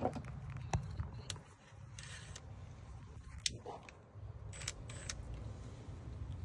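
Scattered sharp clicks and brief light clatters of tools and trim parts being handled, over a low steady rumble.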